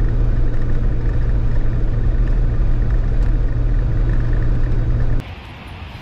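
Jeep driving along a gravel back road, heard from the hood: a loud, steady low rumble of road and engine noise. It cuts off suddenly about five seconds in.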